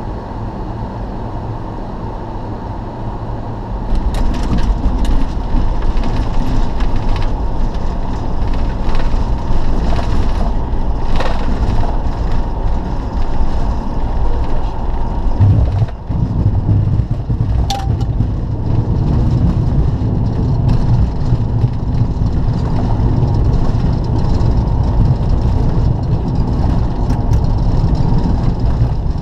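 Cockpit noise of a Bombardier Global Express business jet on final approach and landing: a steady rush of airflow and engine noise from its turbofans. It grows louder about four seconds in, dips briefly just past the middle, and then becomes a heavier low rumble as the jet comes onto the runway.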